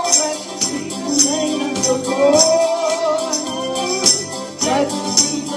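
A man singing a gospel song while shaking a tambourine, its jingles hitting about twice a second, over electric keyboard accompaniment.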